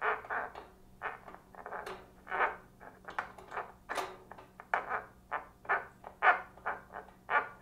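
A quick run of short, separate vocal-like bursts without words, about three a second and uneven in loudness, over a faint steady hum.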